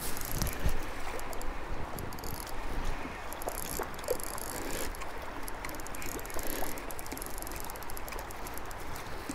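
Fast, high river water rushing steadily, with a couple of low thumps about half a second in.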